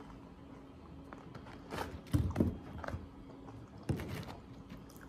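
Eating and food-handling sounds: a person chewing and picking up KFC fried chicken, with a cluster of louder knocks and clicks about two seconds in and another just before four seconds. A faint steady hum runs underneath.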